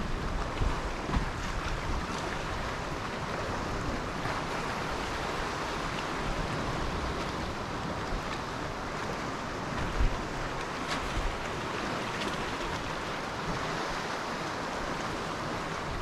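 Sea surf washing steadily on the shore, with wind buffeting the microphone in low, uneven rumbles. One rumble, about ten seconds in, is sharper and louder than the rest.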